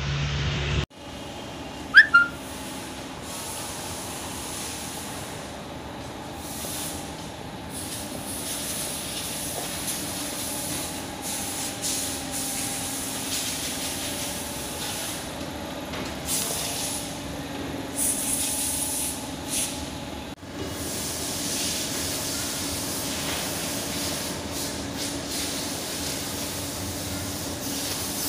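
Steady hiss and low hum of the background noise in a large indoor hall, with one short, sharp squeak about two seconds in.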